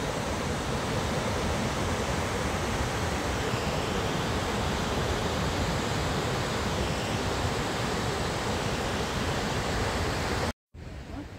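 Steady, loud rush of water pouring down a mountain waterfall, cutting off suddenly near the end.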